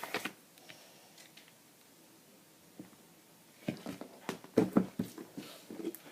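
Slime being squeezed and poked by hand, making a quick run of small pops and clicks that starts a few seconds in after a quiet stretch.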